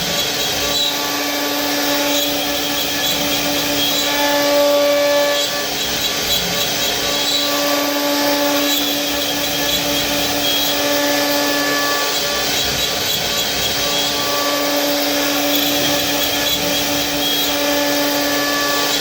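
CNC router running while cutting wood: a steady, loud spindle whine with higher tones that come and go every second or two.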